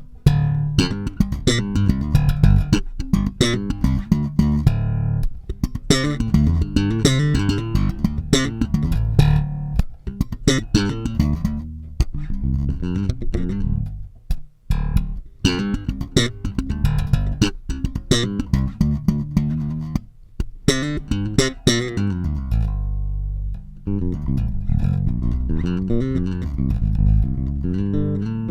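Bassmods K524 electric bass guitar played straight through a DI: a busy run of plucked notes with sharp, bright attacks, and a longer held low note about two-thirds of the way in.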